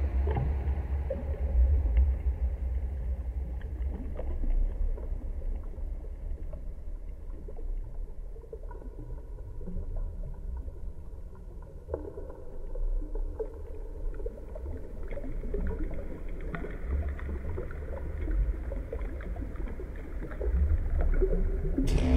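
Low, steady rumbling ambient soundscape with scattered faint clicks and creaks; faint held tones enter about halfway through, and the sound swells just before the end.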